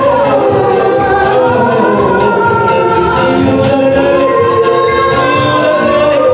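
A man and a woman singing a duet into microphones over an instrumental accompaniment with a steady beat, through a PA system.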